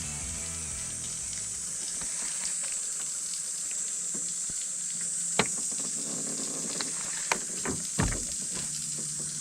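Water sounds with a steady high hiss, broken by a few sharp knocks, the loudest about five seconds in. Background music fades out in the first two seconds.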